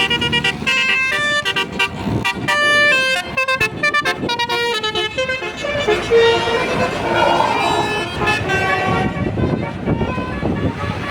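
Intercity bus's basuri 'telolet' multi-tone horn playing a quick melody of stepped notes, busiest in the first half, over the bus's engine running.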